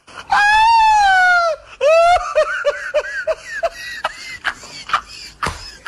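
A man laughing hard: a long, high, wavering shriek of laughter, a shorter second one, then a quick run of 'ha-ha' bursts, about five a second, that trail off.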